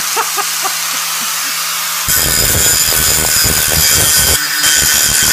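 Angle grinder running with a steady high-pitched whine as its disc grinds a steel piece. About two seconds in the sound turns louder and rougher as the disc grinds harder into the metal.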